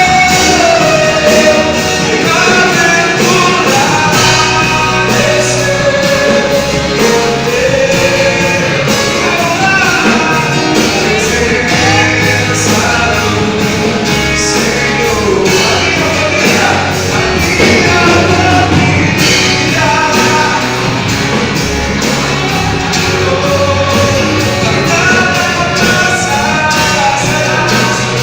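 Christian worship band playing a song, with a singer's voice over the band and drums keeping a steady beat.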